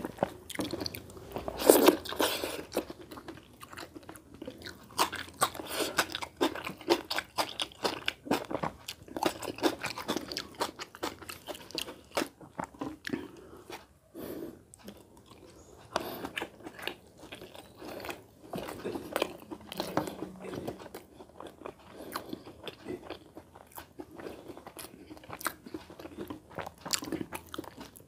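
Close-miked eating sounds: a man chewing and biting mouthfuls of rice and egg curry eaten by hand, wet smacking and clicking of the mouth in an irregular run, with a louder burst about two seconds in.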